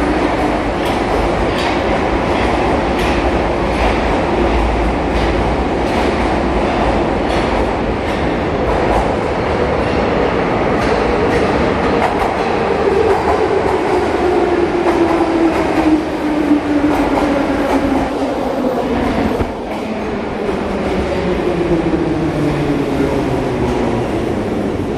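Metro train running through the station, its wheels clicking over the rail joints and its motors whining. The whine sinks steadily in pitch through the second half.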